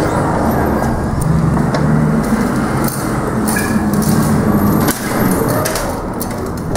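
A loud low rumble with scattered clicks and knocks as glass entrance doors are handled and walked through. The rumble drops sharply about five seconds in, as the door shuts behind.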